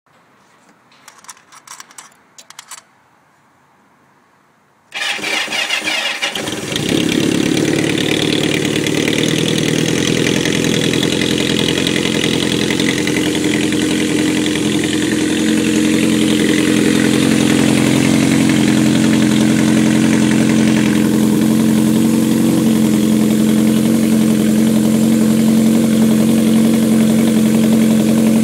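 A few light clicks as the ignition key is worked. Then the Kawasaki KZ650's inline-four engine cranks for about a second and a half and starts. It settles into a steady idle through home-made stainless 4-into-2-into-1 headers and a baffled reverse-cone muffler.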